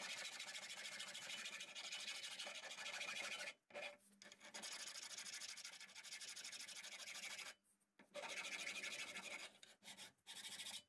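Hand file rasping back and forth over the edges of a milled metal vise part, smoothing rough edges and corners. The strokes come in runs of a few seconds each, with brief pauses about 3.5, 7.5 and 10 seconds in.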